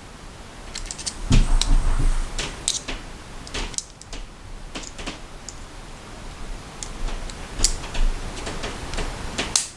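Irregular small clicks and taps as the parts of a disassembled button-lock folding knife are handled during reassembly, with a few duller knocks about a second and a half in.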